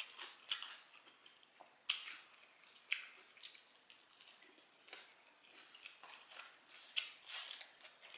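A person chewing a mouthful of spaghetti and ground beef: quiet, irregular mouth clicks and smacks, a few louder ones scattered through.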